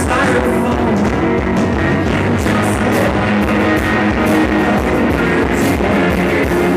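Live rock band playing: electric guitars, bass and drum kit, with a steady drum beat.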